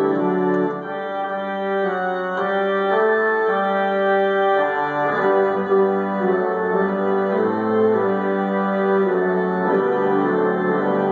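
Three-manual Austin pipe organ playing sustained full chords that change about once a second.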